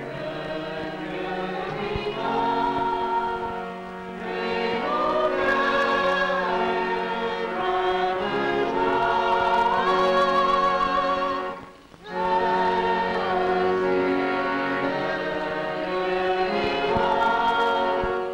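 A choir singing a slow piece of many voices in long held chords, with a short break between phrases about two-thirds of the way through.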